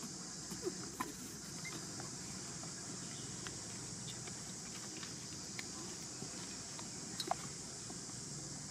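Outdoor background with a steady high hiss, dotted with scattered small clicks and rustles. The sharpest ticks come about a second in and again near the end.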